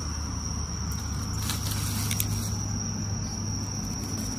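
Night insects trilling steadily at one high pitch, with brief rustling and crackling of leaf litter and twigs about a second and a half in.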